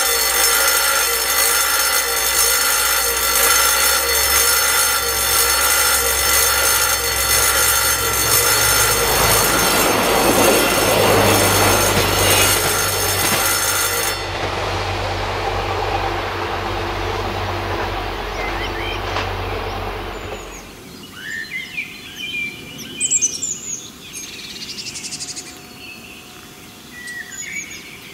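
A level crossing's electric warning bell rings steadily and stops abruptly about halfway through. A diesel train rumbles past from about 9 seconds in, fading out at about 20 seconds, after which birds sing.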